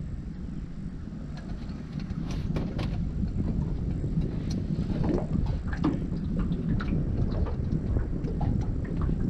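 Wind rumbling on the microphone aboard a small open aluminium dinghy. Scattered light clicks and knocks start about two seconds in and continue irregularly.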